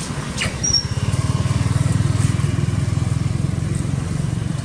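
Motorbike engine running close by: a low, pulsing rumble that swells about a second in and eases off a little toward the end.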